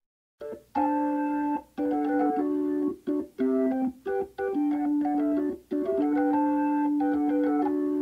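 Keyboard music of held chords and notes broken by short gaps. It starts out of silence about half a second in.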